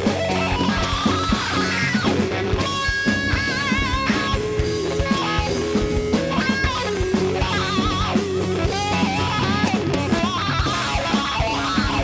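Live heavy-funk rock band playing an instrumental passage: electric guitar and bass over a steady drum-kit beat, with a lead line of held, wavering notes a few seconds in and again later on.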